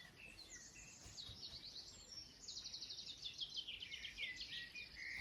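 Songbirds singing faintly: scattered high chirps, then a fast trill of repeated notes through the second half.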